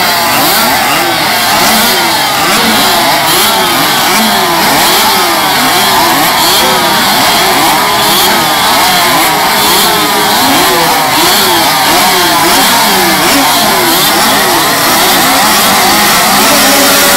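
Several small racing motorcycles, among them a Tomos two-stroke, blipping their throttles over and over on the start grid, their overlapping revs rising and falling about once a second as the riders keep the engines clear while waiting for the flag.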